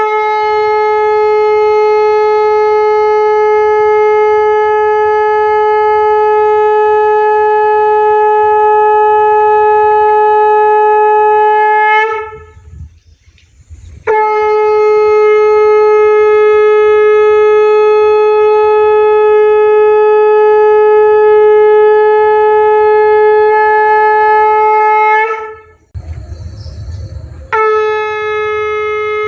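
Conch shell (shankh) blown in long, steady, loud blasts, each held about eleven seconds, with a short upward slide in pitch as each blast begins. Two full blasts are separated by brief pauses, and a third blast starts near the end.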